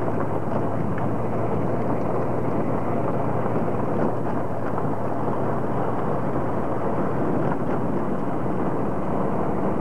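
A vehicle driving along a dirt road: steady engine and road noise with a constant low hum.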